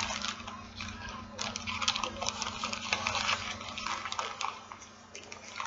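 Small plastic baggie crinkling and rustling as it is handled, a quick irregular run of crackles that thins out about five seconds in.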